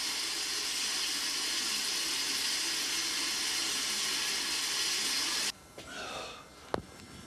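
Water running steadily from a bathroom tap into a sink, stopping abruptly about five and a half seconds in. A single sharp click follows near the end.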